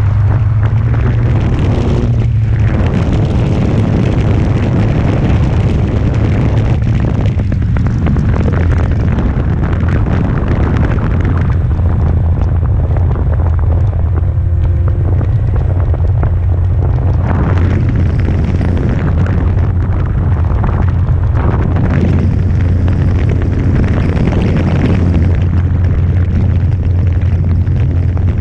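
Loud, steady low rumble of wind buffeting the microphone, with ragged noise riding over it.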